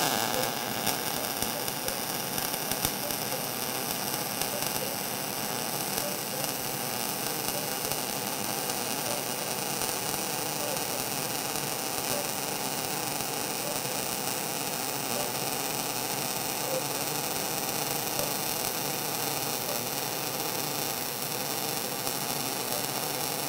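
MIG (gas metal arc) welding with solid wire under 75% argon / 25% CO2 shielding gas, laying a fillet weld along a lap joint between steel plates. The arc strikes abruptly and then runs with a steady crackling hiss.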